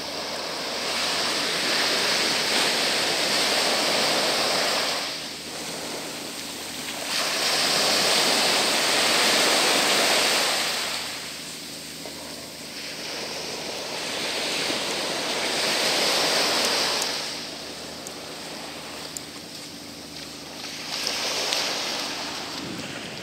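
Surf washing onto a sandy beach: a rushing wash that swells up and falls back four times, each surge lasting a few seconds.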